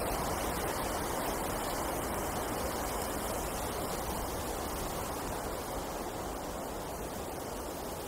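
Winter wind blowing through a forest: a steady, even rushing noise that eases off slightly toward the end.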